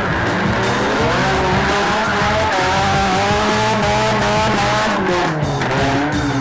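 Demolition drag race car engine revving hard under acceleration, its pitch wavering up and down and then falling away near the end, over background music.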